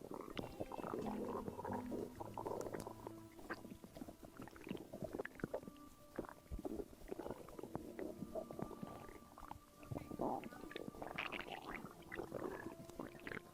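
Stomach gurgling and rumbling: an irregular run of gurgles with brief squeaky tones mixed in.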